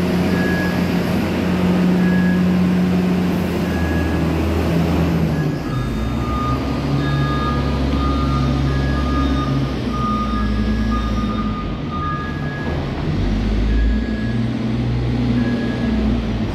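Wheel loader's diesel engine running under load, its pitch rising and falling as it works. A reversing alarm beeps about once a second throughout, and a second, lower-pitched alarm beeps about twice a second for several seconds in the middle.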